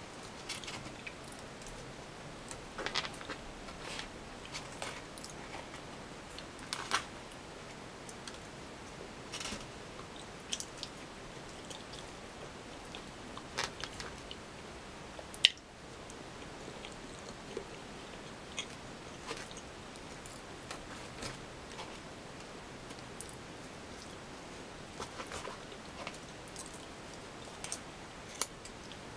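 Eating sounds: a plastic fork and knife scraping and clicking in a polystyrene takeaway box, with chewing, as scattered short clicks over a steady hiss; the sharpest click comes about halfway through.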